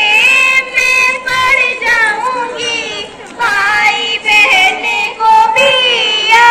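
A young girl singing a song, with some musical accompaniment; the singing drops off briefly about three seconds in, then resumes.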